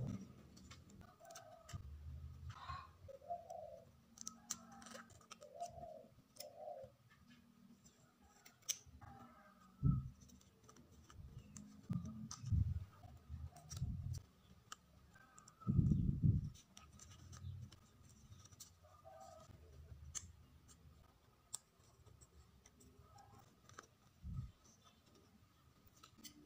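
Paper cards and sticker sheets being handled close up: rustling, peeling and tapping with scattered small clicks and a few soft thumps. A dove coos a few times in the background during the first several seconds.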